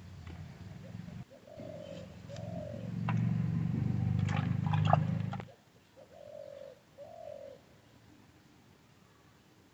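A dove cooing repeatedly, short arched coos of about half a second each. Under the first half runs a low hum with a few sharp clicks that grows louder and then cuts off suddenly about five and a half seconds in, leaving only the coos.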